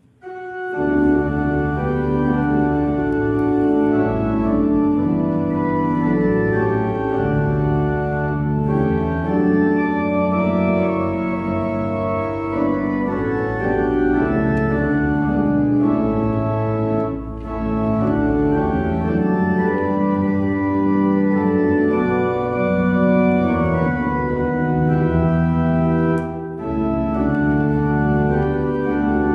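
Organ playing slow, sustained chords over held bass notes, beginning about a second in, with two brief breaks between phrases.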